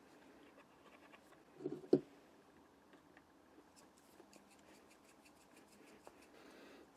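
A small plastic oil bottle is set down on a wooden bench with a short knock a little under two seconds in. Then a pair of vintage steel pliers is worked open and closed, the freshly oiled pivot and jaws giving a run of faint, rapid metallic clicks.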